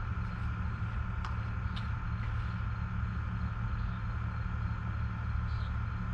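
A steady low mechanical hum with a faint high tone held above it, and a few light clicks about a second and two seconds in.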